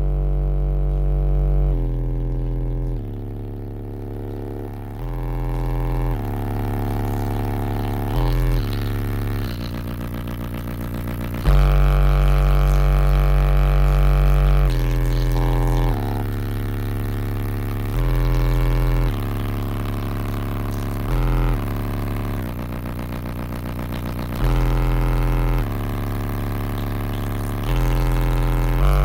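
Bass-heavy music played loud through a car's subwoofer system and heard inside the vehicle, with long held deep bass notes that change pitch every second or two.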